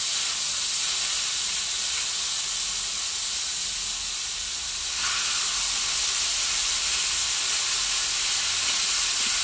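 Two thick, butter-coated chuck steaks searing butter-side down on a charcoal-heated griddle at about 315°F: a steady sizzle and hiss of butter and meat juices hitting the hot metal and flashing to steam.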